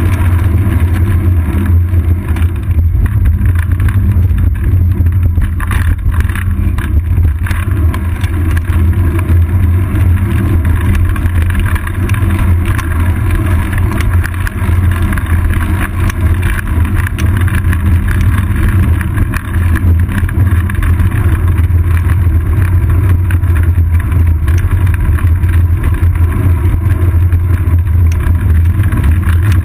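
Steady low rumble of wind and road vibration picked up by a seat-post-mounted GoPro Hero 2 while the bicycle rolls along asphalt.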